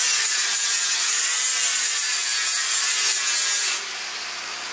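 Angle grinder grinding a weld bead flush on the bus's steel floor, where a seat-mounting hole has been welded shut. It runs steadily under load, then stops near the end.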